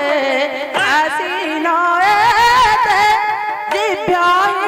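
A woman singing an Odia folk song into a microphone through a PA, her melody wavering and ornamented, with hand-drum strokes on a double-headed barrel drum now and then.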